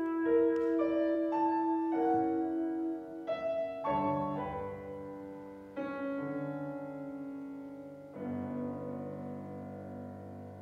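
Alto saxophone and piano playing a slow classical passage. A long held note early on gives way to piano chords struck about 4, 6 and 8 seconds in, each ringing on and slowly fading.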